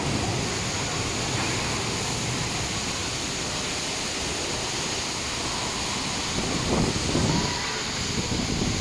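Typhoon wind and rain: a steady rushing noise of strong wind with driving rain, swelling briefly in gusts about seven seconds in and again near the end.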